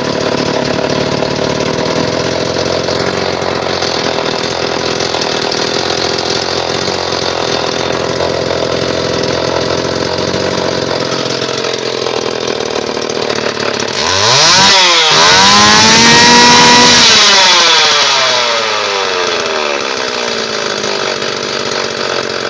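Homelite Super 2 two-stroke chainsaw idling steadily on a freshly adjusted carburetor. About fourteen seconds in it is revved up once, held high for a couple of seconds, and then runs back down to a steady idle.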